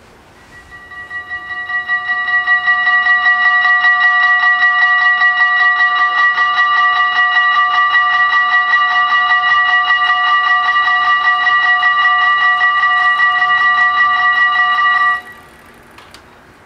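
Level-crossing warning bells ringing rapidly while the barriers come down, signalling an approaching train. The ringing swells up over the first two seconds, holds steady, then cuts off suddenly about fifteen seconds in, once the barriers are down.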